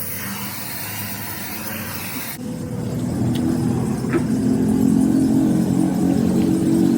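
A steady hiss cuts off suddenly about two seconds in, then an engine's running note grows louder and holds steady.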